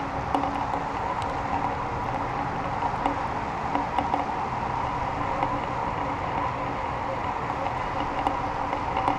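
Steady rushing wind noise on a GoPro in its housing, hanging in the air under a cluster of helium balloons. Light scattered ticks and knocks run through it.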